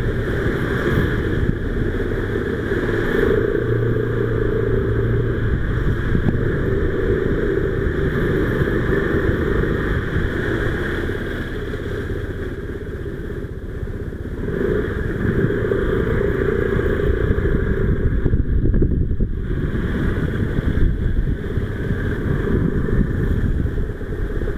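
Motor scooter engine running while being ridden, with steady road noise. It eases off a little about halfway through and then picks up again.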